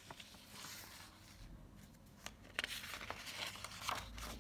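Sheets of paper rustling as a handwritten page is lifted and turned over, the rustle heaviest in the second half.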